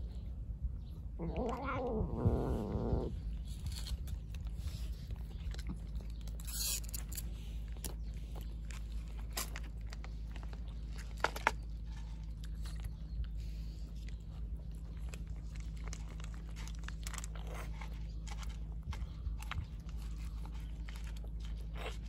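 A cat eating wet food and dry kibble from a plate, with many small crunches and clicks of chewing. About a second in, a cat meows once, a drawn-out call of about two seconds. A steady low rumble runs underneath.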